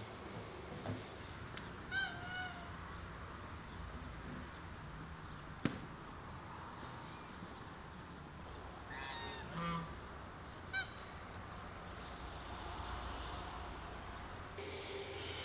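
Domestic geese honking a few times: a call about two seconds in, a cluster of honks around nine to ten seconds, and one more near eleven seconds. A single sharp knock about five and a half seconds in.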